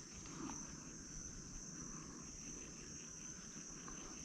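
Insects trilling steadily at one high pitch, over a faint low background hum.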